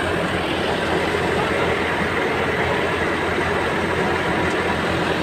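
A Massey Ferguson 385 tractor's diesel engine running steadily under load, driving a belt-driven threshing machine. The engine and the thresher's whirring drum blend into one continuous, even mechanical noise.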